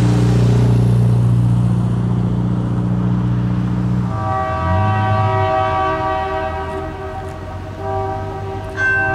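Distant locomotive horn, a Nathan K3L with a fouled chime, sounding a sour multi-note chord from about four seconds in; it dips and comes back louder near the end. Before the horn, a low steady drone.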